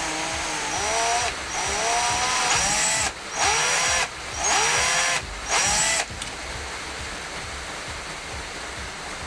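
Cordless drill boring into a damaged steel screw head on a motorcycle brake master cylinder reservoir cap. It runs in about five short bursts over some six seconds, its pitch rising and falling as the trigger is squeezed and eased, then stops. The drilling is deliberately slow, to take off the screw's head without cutting into the casing.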